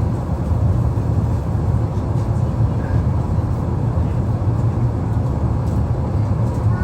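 Steady low rumble inside the cabin of an Emirates Airbus A380 in flight: engine and airflow noise, even and unbroken, with a faint steady hum above it.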